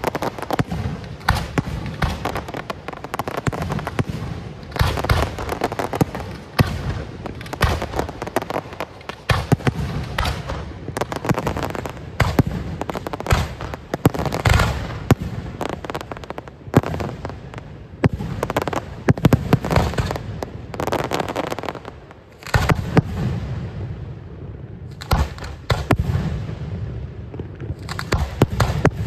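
Fireworks display: a dense, continuous run of bangs and crackling bursts, with a short lull about three-quarters of the way in.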